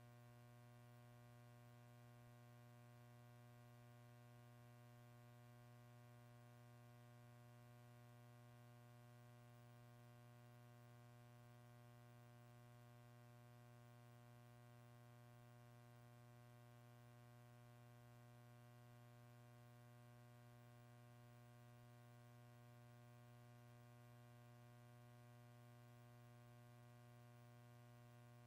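Near silence: a faint, steady hum with no change at all.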